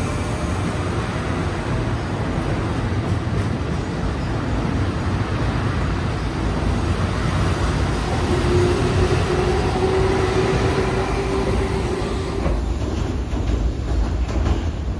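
Keihan 8000 series electric train pulling out of a station platform, its cars rumbling past close by as it gathers speed, with a faint steady hum in the middle. About two seconds before the end the sound changes to another train running on the line.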